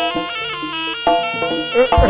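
Live jaranan gamelan music: a slompret, the Javanese double-reed shawm, plays a melody of held, reedy notes over the ensemble, with a sharp crack right at the end.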